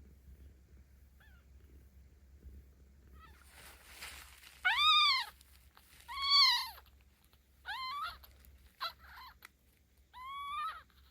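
A 17-day-old kitten mewing: five loud, high cries in quick succession through the second half, each rising and then falling in pitch.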